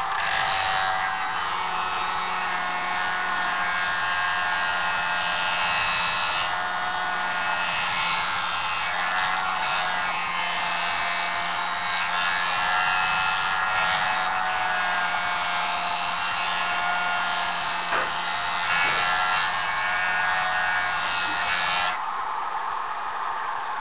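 Jool Tool sharpening system's spinning abrasive disc grinding a tool's edge: a steady motor whine under a hissing scrape of abrasion. The grinding stops suddenly about 22 seconds in, leaving a quieter hiss.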